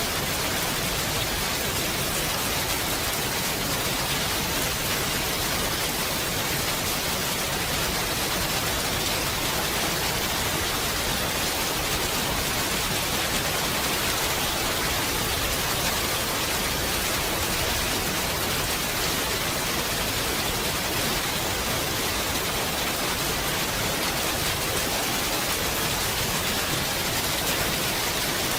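Steady, even rain: a dense hiss with no single drops standing out.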